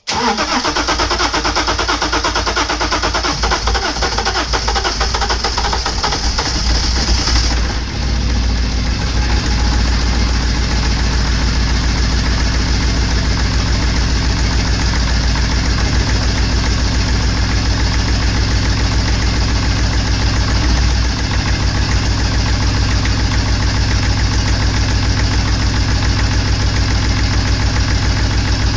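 BMW M57 3.0-litre straight-six diesel engine starting up after new injectors have been fitted, running harshly at first and settling about seven or eight seconds in to a steady diesel idle.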